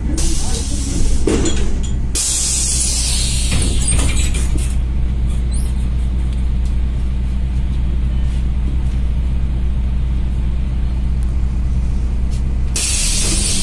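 Inside a MAZ-103 city bus: the engine's steady low drone. There is a hiss in the first few seconds and again near the end.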